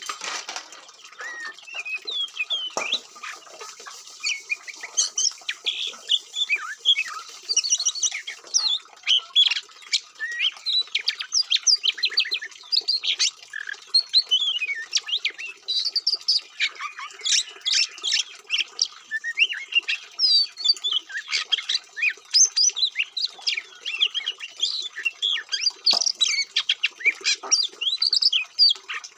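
Oriental magpie-robin (kacer) singing a continuous, varied song of quick whistles, chirps and trills with hardly a pause.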